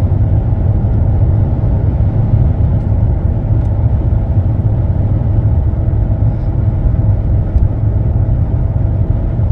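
Steady low rumble inside the cabin of a 2005 Mercedes E320 CDI diesel sedan cruising at about 70 mph.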